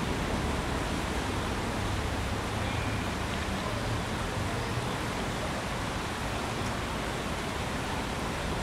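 Small river rushing over rocks and a low cascade: a steady wash of water noise.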